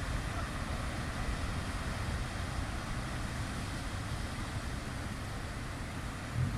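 Steady roar of heavy surf breaking on a rocky shore, a big swell running, with a deep rumble underneath.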